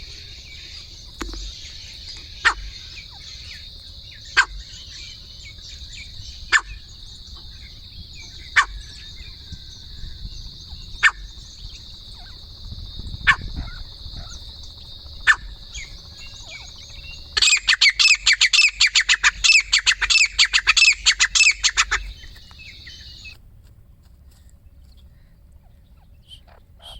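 Birds calling: a short, sharp call about every two seconds over a steady high drone. About seventeen seconds in comes a loud, rapid chattering run that lasts about five seconds.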